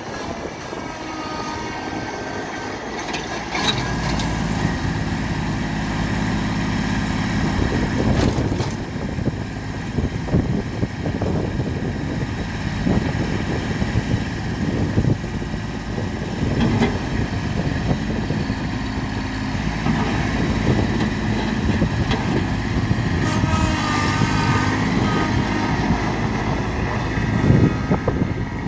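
Kubota B26 tractor loader backhoe's small three-cylinder diesel running steadily as the machine drives about, getting louder about three and a half seconds in.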